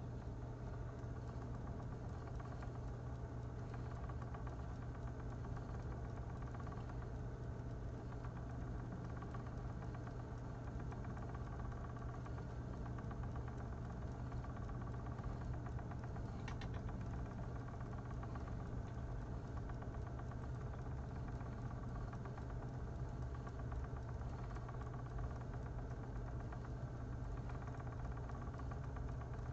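Magpie electric spinning wheel running steadily, its motor and whirling flyer giving an even hum, with one brief click just past halfway.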